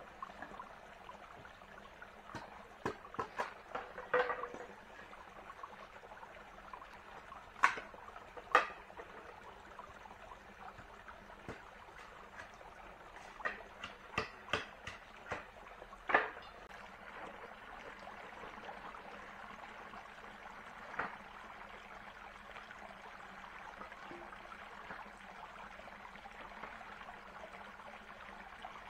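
Irregular sharp knocks and clicks from something being handled, bunched in the first half with a single one later, over a steady background hiss of water.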